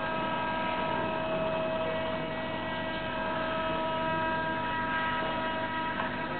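Electric motors of a robotic leg running with a steady whine, several high steady tones over a low hum.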